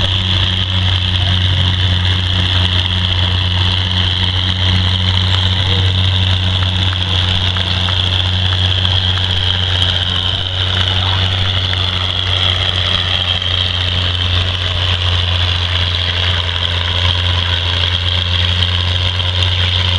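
Oliver farm tractor engine running steadily under load as it pulls a weight-transfer sled, with an even low hum and no big changes in revs.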